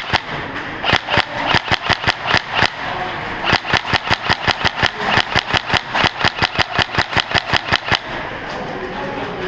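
Tokyo Marui HK416D airsoft electric rifle firing strings of rapid shots, about six or seven sharp clacks a second, in three main strings with short pauses between them.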